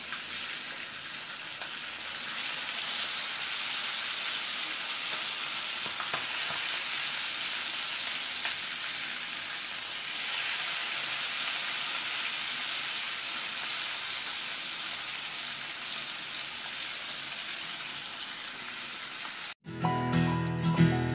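Marinated chicken legs sizzling steadily as they shallow-fry in hot oil in a pan, with occasional light stirring of a wooden spatula. Near the end the sizzle cuts off abruptly and music begins.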